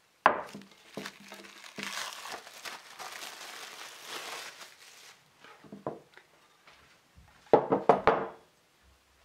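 A glass baking dish set down on a wooden table with a knock, then plastic cling film crinkling for a few seconds as it is peeled off the dish. Near the end, a frying pan is set on the stove with a quick run of loud clanks.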